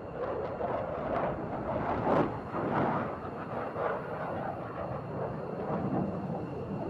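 F-15 fighter jet's engines roaring as it climbs away after takeoff: a ragged, crackling jet roar, loudest about two seconds in.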